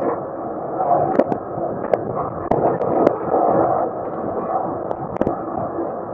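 A tractor pulling a small square baler runs steadily, with several sharp irregular knocks and clanks from the machinery over the drone.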